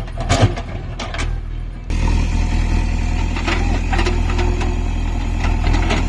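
Heavy diesel machinery running steadily, a backhoe loader or tractor engine with scattered clanks, cutting in abruptly about two seconds in.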